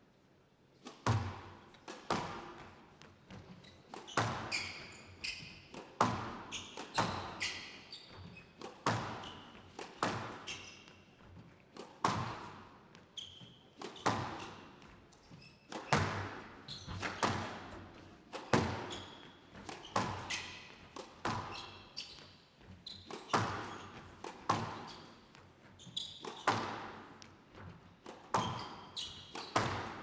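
Squash rally: the ball is struck hard by rackets and hits the walls about once or twice a second, each hit echoing in a large hall, with short squeaks from players' shoes on the court between shots.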